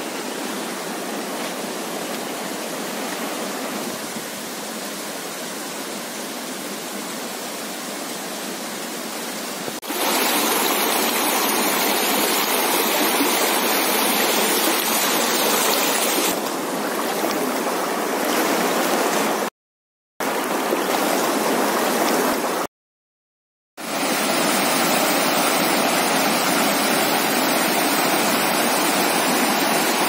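Shallow rocky river rushing over stones: a steady hiss of flowing water that gets louder about ten seconds in. The sound cuts out completely twice, briefly, about two-thirds of the way through.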